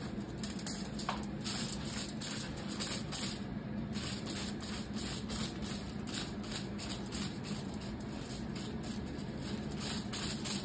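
Hair-colour tint brush and tail comb working hair on aluminium foil: quick soft swishing and rustling strokes, about three or four a second, over a steady low room hum.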